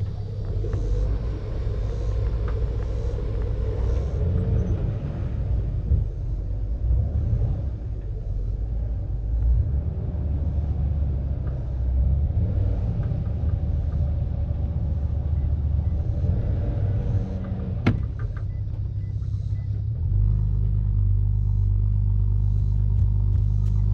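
Pontoon boat's outboard motor running under way, a steady low rumble with wind and water noise mixed in. About twenty seconds in it settles into a smoother, more even hum.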